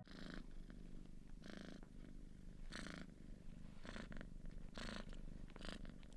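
A cat purring close to the microphone, in faint rhythmic bursts about once a second with each breath.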